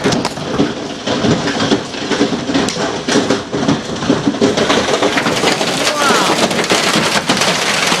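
Hail and heavy rain pelting the building, a dense steady clatter with many sharp individual hits.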